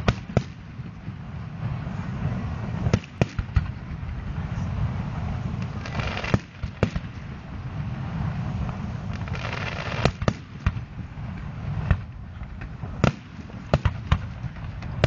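Aerial firework shells bursting: about a dozen sharp bangs at irregular intervals, some in quick runs of two or three, with stretches of crackling between them.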